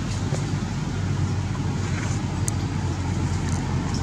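Steady low motor rumble, like an engine running at a distance, with a few faint high clicks.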